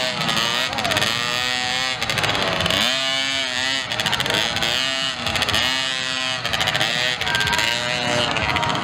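Small two-stroke engines of 55cc-class kids' mini motocross bikes racing, their pitch rising and falling about once a second as the throttle is opened and closed.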